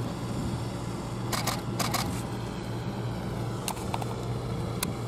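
Single-lens reflex camera shutters firing in short groups of clicks, several times, over a steady low hum.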